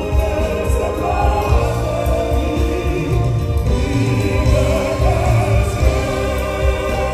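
Classical-crossover male vocal group singing together in sustained, vibrato-laden lines over a live band, amplified through a concert sound system.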